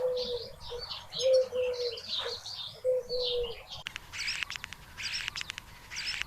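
Wild birds calling: a low cooing call repeats in short runs of two or three, with small birds chirping above it. About halfway through the sound changes abruptly to short, rapid rattling trills that come roughly once a second.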